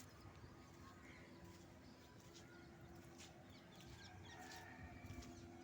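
Near silence: faint distant chickens clucking and small birds chirping, over a steady low hum.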